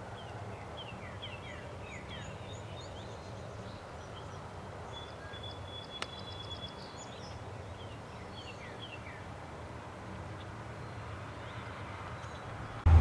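Small birds chirping, trilling and whistling in short phrases over a faint steady low hum, with a single sharp click about six seconds in.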